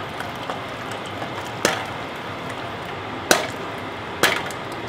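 Popcorn kernels popping in hot oil inside an aluminium beer can on a gas burner: three loud, sharp pops, then one more about a second later, with a few fainter ticks over a steady hiss.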